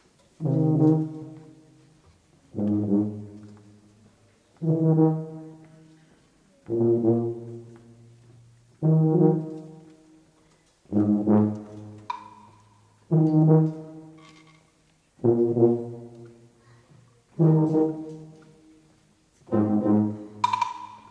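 Live wind band's brass section playing slow, sustained low chords, one roughly every two seconds, each sounding strongly and then fading away. A higher note joins in about halfway through and again near the end.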